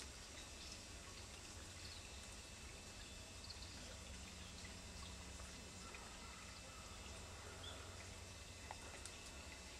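Faint woodland ambience: a steady low hiss and hum, with a few faint, brief high chirps.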